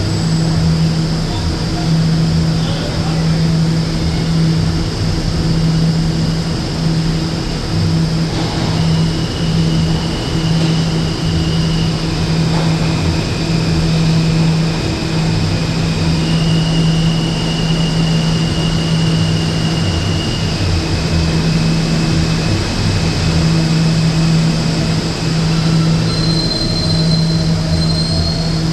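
HVAC unit of an R179 New York City Subway car running: a steady rush of air over a constant low hum. Faint high whines come and go over it.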